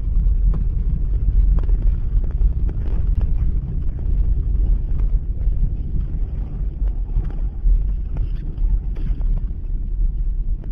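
Car driving along a snowy road, heard from inside the cabin: a steady low rumble of engine and tyres, with a few faint ticks and knocks.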